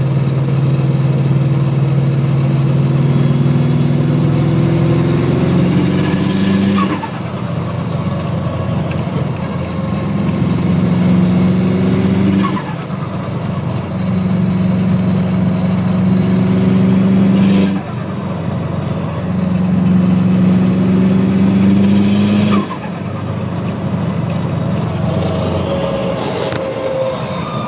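Fully built Cosworth Subaru flat-four engine pulling in fifth gear on 8 psi of boost. Four times the throttle is lifted: the engine note drops suddenly and the turbo flutters briefly, with a short falling whistle. Then it pulls again.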